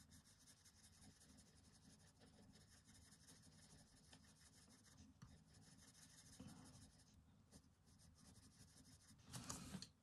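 Faint scratching of a Faber-Castell Polychromos oil-based coloured pencil shading lightly on smooth paper, in a layering pass. A brief louder rustle near the end.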